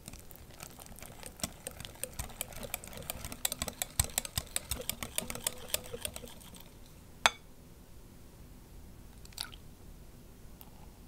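Wire whisk beating a thick cream cheese mixture in a glass bowl, its wires clicking rapidly against the glass for about seven seconds. Then one sharp clink, and a fainter one a couple of seconds later.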